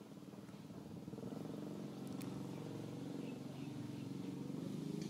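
A motor engine running steadily at low pitch, growing louder about a second in, with a few faint high chirps over it.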